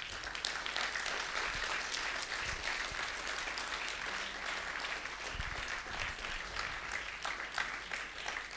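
Audience applauding: dense, steady clapping that swells up at the start and eases slightly near the end.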